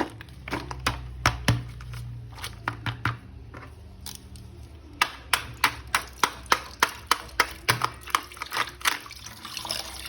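A run of sharp clicks and taps over a steady low hum. In the second half the clicks come evenly, about three a second.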